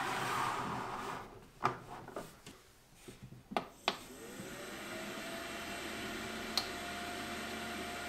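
Eibos filament dryer being slid onto a wooden bench and its control buttons clicked, then its fan starting about four seconds in: a whir that rises in pitch and settles into a steady hum. A little later comes one sharp click from its electromechanical heater relay, a click that recurs from time to time while it heats.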